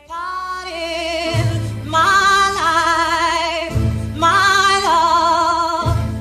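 Music with a singing voice holding long notes with a wavering vibrato, over a deep bass that comes in about a second in.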